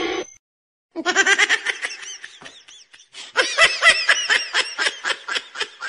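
A person laughing in quick repeated bursts, two long fits of laughter, the second starting about three seconds in.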